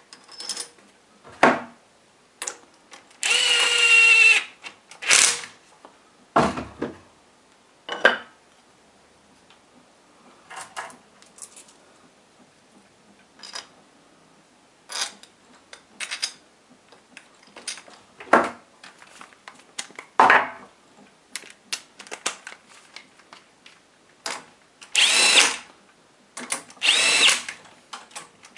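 A cordless power driver spins bolts into an engine's cylinder head. It gives a steady whir of about a second and a half about three seconds in, then two short whirs near the end that speed up and slow down. Scattered clicks and knocks of metal parts and tools fall between the runs.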